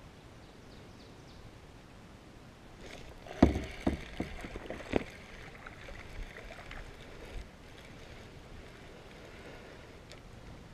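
A handful of sharp knocks against a hollow plastic kayak hull, bunched between about three and a half and five seconds in, the first the loudest, over a soft wash of water around the boat.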